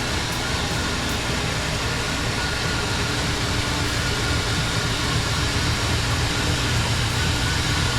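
Old derby car's engine running steadily, with a low, even pulsing beat.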